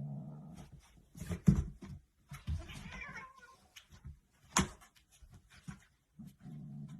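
A cat meowing, with several sharp knocks, the loudest about a second and a half in and another about four and a half seconds in.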